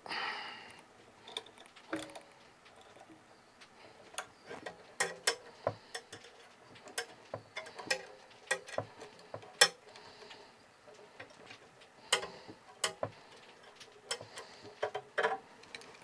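Irregular small metal clicks and taps as a flaring tool and its drilled clamp bar are taken off a freshly flared copper refrigeration tube.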